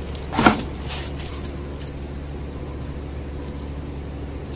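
Steady low background hum, with a short voice-like sound about half a second in.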